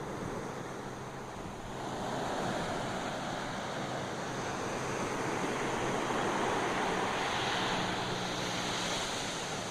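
Sea waves breaking and washing up a beach: a steady surf rush that swells about two seconds in and eases off near the end.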